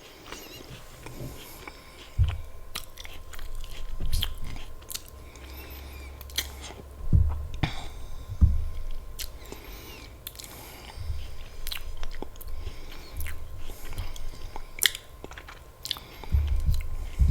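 Close-miked chewing and biting of apple slices with peanut butter: many sharp, crisp crunches, broken now and then by heavier dull thuds of chewing.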